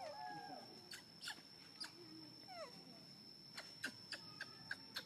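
Baby macaque squeaking: a few short whimpering calls that glide down in pitch, then a quick run of sharp chirping squeaks from about three and a half seconds in.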